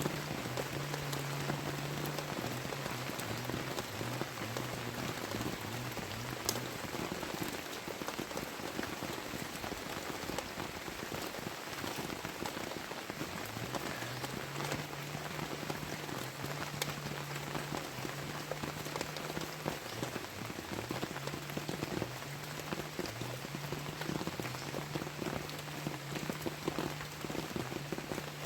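Heavy tropical rain falling steadily, a dense hiss of drops with scattered sharper drips. Under it, a low hum steps back and forth between two close pitches, in the first few seconds and again from about halfway on.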